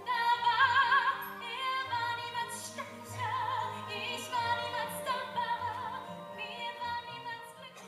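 A woman singing in a classical, operatic musical-theatre style, holding long notes with strong vibrato over orchestral accompaniment, in several phrases.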